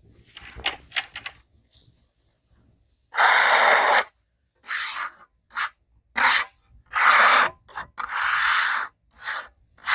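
Rubbing strokes across freshly sawn red oak, about six in a row, each under a second, with short pauses between them.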